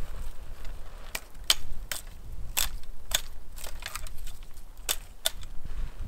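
Dry wood snapping in a series of sharp cracks, about nine over a few seconds, as twigs are broken off a stick. Low wind rumble on the microphone underneath.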